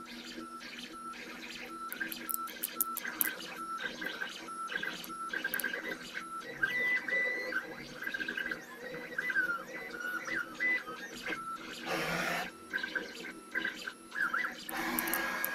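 Stepper motors of a homemade CNC router gantry running as the machine draws with a pencil, their whine starting, stopping and changing pitch with each move over a steady hum. The pencil scratches on the plywood in short bursts, strongest about twelve and fifteen seconds in.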